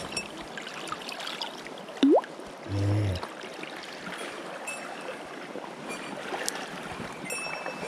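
River water running and trickling. There is a short rising squeak about two seconds in and a brief low sound about three seconds in.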